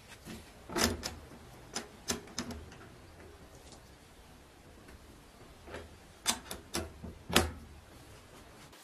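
A new metal toggle latch on a sandblasting cabinet's sheet-metal door being unlatched and latched again: two clusters of sharp metallic clicks and clacks, the loudest about a second in and another loud one near the end.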